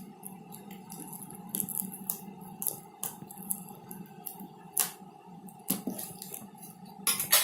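Hands unpacking a delivery package: irregular clicks, taps and crinkles of packaging being handled and pulled apart, over a steady low hum.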